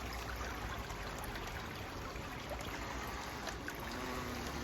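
Steady running-water noise, with a faint low hum coming in near the end.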